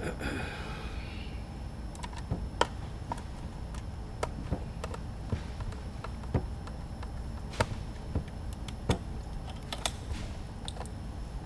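Irregular small clicks and taps as a FrSky Horus X10S transmitter's plastic case is handled and turned over during reassembly, with a steady low hum underneath.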